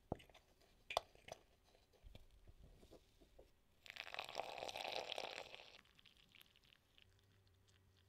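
A metal bombilla clinks twice against a glazed mate gourd, then water pours from a gooseneck kettle onto the dry yerba mate for about two seconds.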